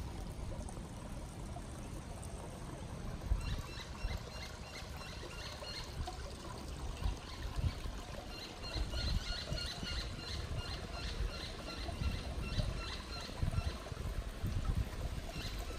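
Water trickling in a small creek over rocks, with a low rumble throughout. A few seconds in, repeated short high chirps start, about three a second, in two spells with a pause between them.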